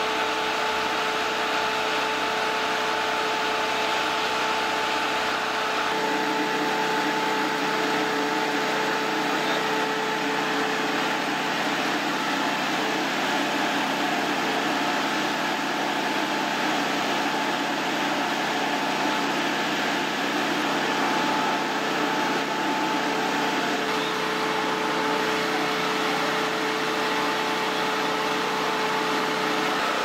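Steady engine drone of fire-service machinery running at the scene, with a constant hum over it. The deepest part of the drone drops away about six seconds in.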